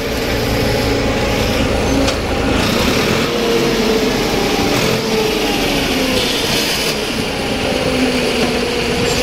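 Blue farm tractor's diesel engine running steadily while pulling a field implement over tilled soil.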